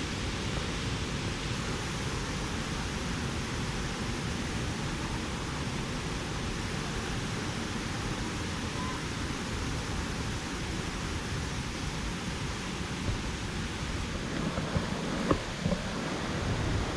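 Steady, even rushing of a waterfall's falling water, with a few brief knocks near the end.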